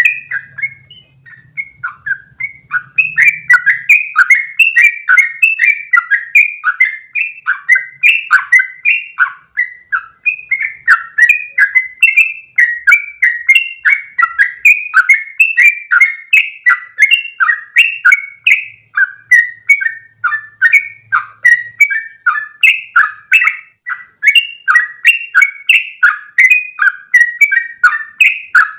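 Yellow-vented bulbul (trucukan) singing a long, unbroken run of short, bubbly repeated notes, about three a second. This is the rapid-fire 'ropel' song used as a master track to teach other birds.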